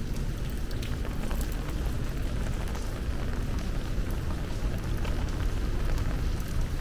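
Heavy rain falling steadily, with many sharp close drop hits ticking over the downpour and a low rumble underneath.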